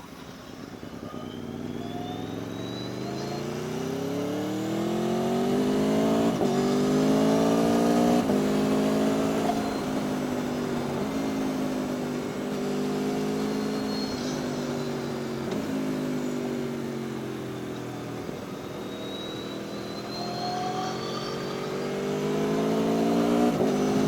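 Aprilia Tuono V4 1100 RR's V4 engine under way: it pulls up through the revs and shifts up several times in quick succession, eases off about two-thirds of the way through, then accelerates again with another shift near the end.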